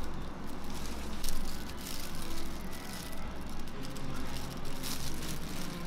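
Steady low background hum with a few light clicks and rustles from food being handled on a cutting board.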